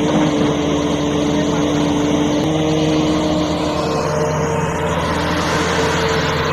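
Diesel engine of a Tata Hitachi Zaxis 650 hydraulic excavator running steadily as it digs, its note shifting about two and a half and four seconds in.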